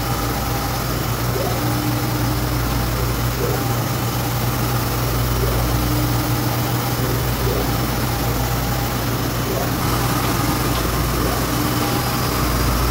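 Epson SureColor V7000 UV flatbed printer running during a print: a steady machine hum, with a short higher tone three times, about every four seconds.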